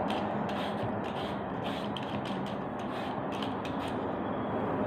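Vegetable peeler scraping the rind off a wedge of kalabasa squash, a quick run of short scraping strokes, two or three a second.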